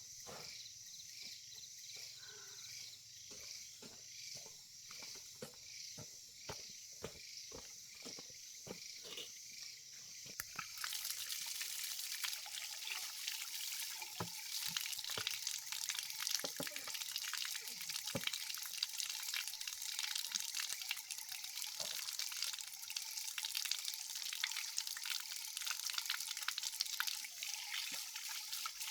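Insects chirping in a steady high pulse, about two a second; about eleven seconds in, a steady trickling, dripping water sound starts abruptly and carries on.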